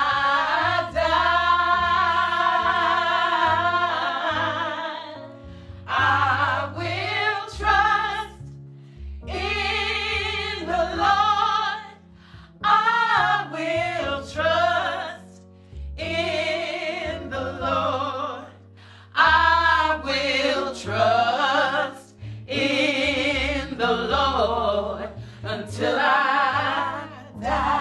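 Several women's voices singing a gospel spiritual together in phrases a few seconds long with short breaks between them, over low held bass notes.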